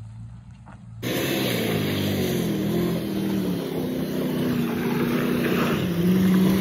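Chevrolet Express van's engine revving hard as it is driven through mud. It is faint at first and close and loud from about a second in, its pitch sagging and then climbing again near the end.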